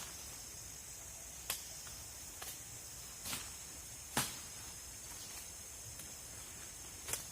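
Steady high-pitched drone of forest insects, with a few short sharp knocks scattered through it.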